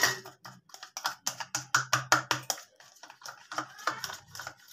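A metal spoon stirring grated garlic in oil in a plastic cup, clicking and scraping against the cup's side in quick, irregular taps that thin out near the end.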